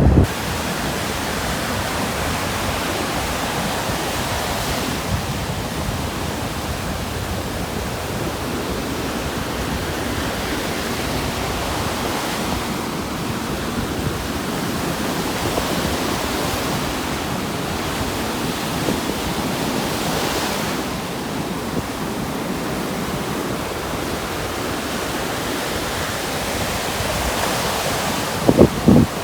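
Steady rush of surf and wind on a beach, swelling every several seconds. Wind starts buffeting the microphone near the end.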